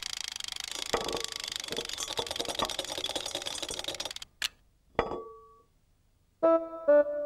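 Fast, rattling whirr of a whisk beating a mix in a bowl, a cartoon mixing sound effect lasting about four seconds. It stops with a click, then a soft thud with a brief ringing tone. Near the end come a few short squeaky pitched notes.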